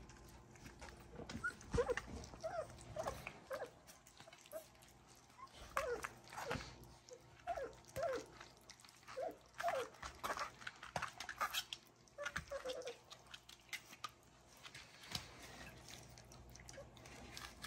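Three-week-old puppies giving a scattered string of short, high squeaks and whimpers while licking and lapping food off a plate, with small wet clicks and smacks from their mouths.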